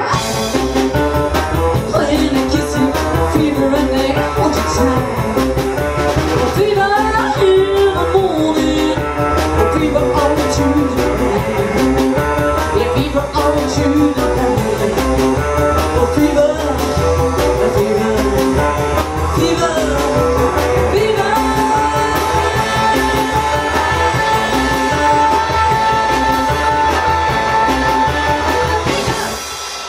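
A live band playing an instrumental passage with a steady bass and drum groove and guitar. About two-thirds of the way in, a long high note is held over the groove. Near the end the band stops together, and the music cuts off.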